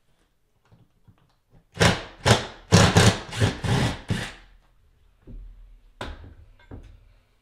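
Cordless drill run in about six short bursts against the drywall, starting about two seconds in, with a couple of lighter knocks near the end.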